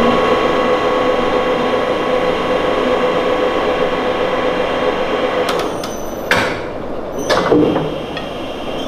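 Quantum Machinery powered tubing bender running with a steady motor hum as it bends 1-inch steel tube, stopping about five and a half seconds in, followed by a few sharp clicks and knocks.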